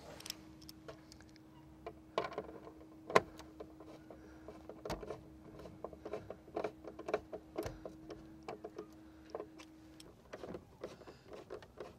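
Hand screwdriver starting a Torx screw into a truck's door-mirror mount: scattered small clicks and taps, the sharpest about three seconds in. A faint steady hum runs underneath and stops near the end.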